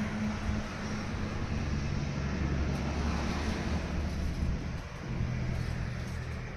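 An engine or motor running steadily, with a low hum.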